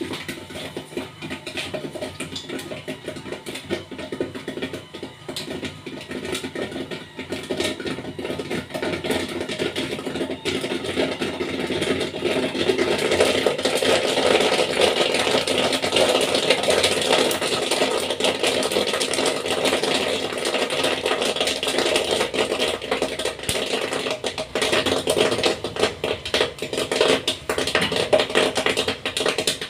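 Popcorn machine running, its kettle popping corn kernels in a dense crackle that builds up about twelve seconds in and stays heavy, over the hum of the stirrer motor.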